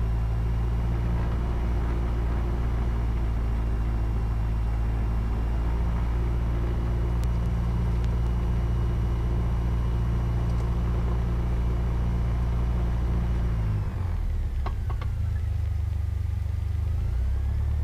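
Cessna 172's piston engine and propeller running steadily while the plane taxis. About fourteen seconds in the engine note drops and settles lower.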